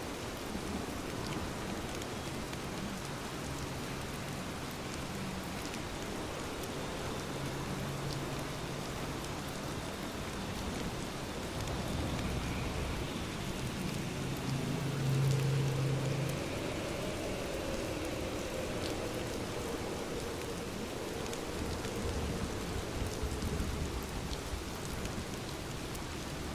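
Steady rain falling, a continuous even hiss. A low hum swells and fades around the middle.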